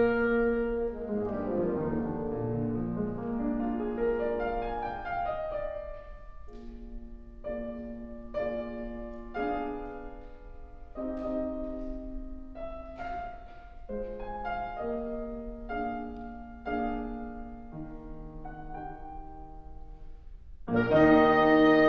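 Piano and wind quintet playing classical chamber music: the piano leads a quieter passage of separate phrases, and the full ensemble comes in loudly near the end.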